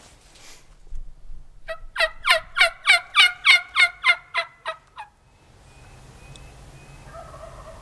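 A series of about a dozen loud turkey yelps, about three or four a second, lasting some three seconds. Each note drops slightly in pitch.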